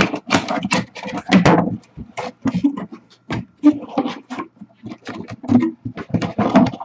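Cardboard box being pulled open by its top flap and handled: a rapid, irregular run of short cardboard scrapes, rustles and knocks.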